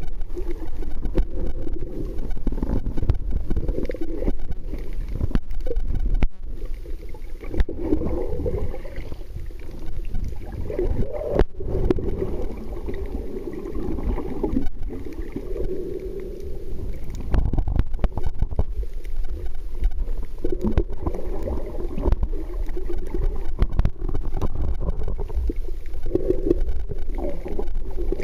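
Muffled underwater rumble and gurgling of water moving around a submerged camera, with a couple of brief dropouts.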